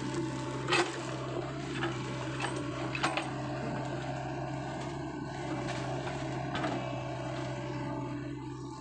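Sany excavator's diesel engine running steadily at work, with several short sharp cracks of wood, the loudest just under a second and about three seconds in.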